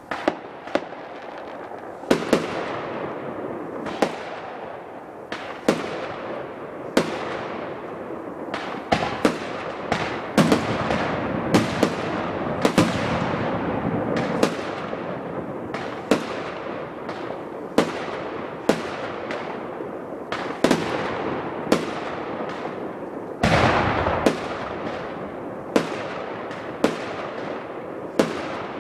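Consumer fireworks going off in a continuous barrage: sharp bangs every second or two, with a dense noisy fill between them that keeps going.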